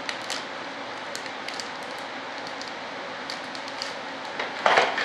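Clear plastic vacuum bag over a composite layup crinkling and crackling as it is handled and pressed down, with a louder rustle of the plastic near the end. A steady hiss runs underneath.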